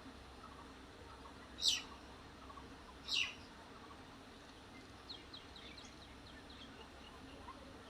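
Birds calling: two loud, sharp, sweeping calls about a second and a half apart, then a run of short, faint, high chirps, over a faint steady low hum.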